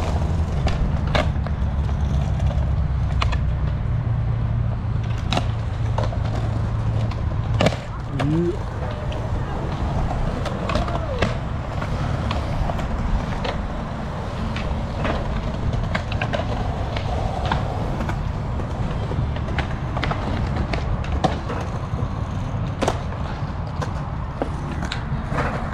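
Skateboards on concrete: a steady low rumble broken by many sharp clacks of boards popping, slapping down and hitting ledges, the loudest one a little under eight seconds in.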